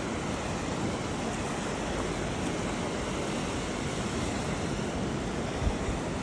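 Ocean surf washing steadily on a beach, with wind buffeting the microphone in low gusts near the end.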